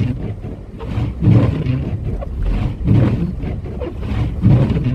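Low rumble of wind and road noise inside a car driving through a blizzard, swelling about every second and a half.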